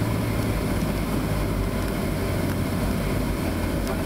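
Steady rumble inside the cabin of a Boeing 707 rolling out on the runway after landing, with its spoilers up: the Pratt & Whitney JT3D turbofans and the wheels on the runway, over a steady low hum.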